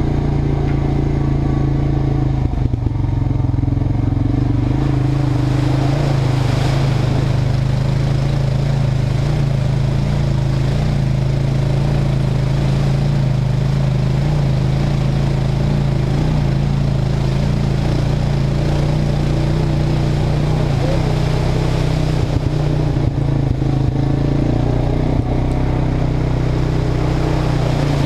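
ATV engine running steadily at an even pitch as it drives through a flooded, muddy trail, with water and mud splashing from about six seconds in.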